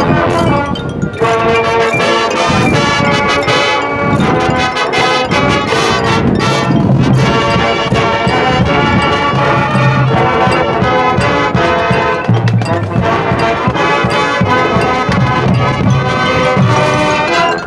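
High school marching band playing its field show, with brass in front: trumpets and trombones sounding sustained chords over low brass notes.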